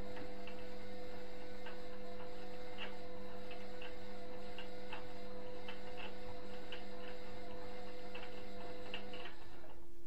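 Indesit front-loading washing machine running, with a steady motor hum and drum noise broken by light, irregular clicks, the drum motor stopping about nine seconds in.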